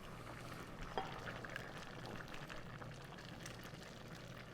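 A pot of vegetable stew bubbling faintly at a simmer, with a small tick about a second in.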